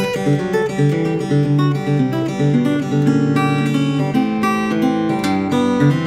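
Batiksoul parlor-size acoustic guitar played fingerstyle: plucked melody notes over sustained bass notes, changing continuously.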